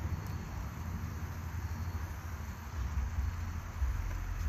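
Low, uneven outdoor background rumble with a faint hiss above it.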